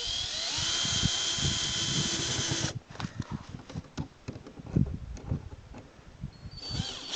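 Electric drill-driver driving self-tapping screws. It spins up and runs steadily for about two and a half seconds, then stops. Clicks and knocks of handling follow, and a second run starts near the end.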